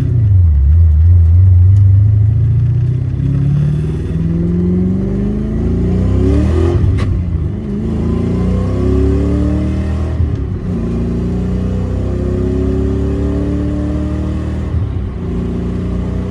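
Fox-body Ford Mustang with a T5 five-speed manual gearbox accelerating through the gears: engine revs climb, drop at a shift about seven seconds in with a sharp click, climb again, drop at another shift about ten seconds in, then rise slowly.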